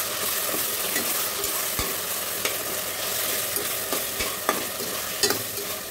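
A ground coriander, cumin, garlic and ginger masala paste, with green chillies, sizzling in hot oil in a steel pressure cooker. A steel ladle stirs and scrapes through it, with a few sharp clicks against the pot.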